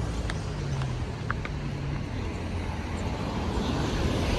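Road vehicle engine running with a steady low drone and road noise, and a few light clicks and rattles.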